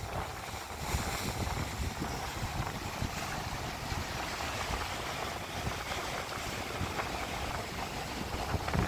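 Sea surf churning and washing against a rocky shoreline, a steady rushing noise, with wind buffeting the microphone in low gusts.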